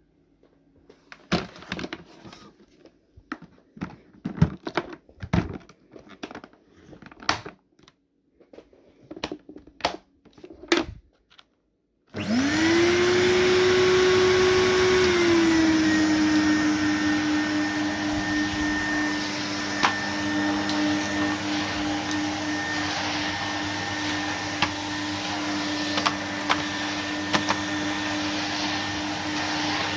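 A series of knocks and clicks from handling, then about twelve seconds in a Numatic Henry HVR200-22 vacuum cleaner switches on: its motor spins up with a rising whine, drops slightly in pitch a few seconds later, and runs steadily.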